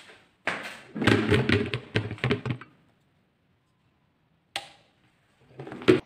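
A quick cluster of knocks and thumps in a small room, then a lone click and a sharp knock near the end.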